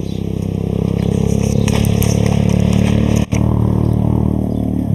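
A small engine running steadily nearby, a low drone with a fast flutter that holds the same pitch throughout.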